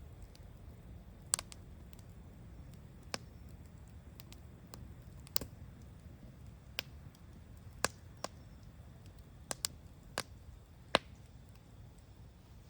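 Wood fire crackling: about a dozen sharp, irregularly spaced pops over a low steady rumble, the loudest pop coming near the end.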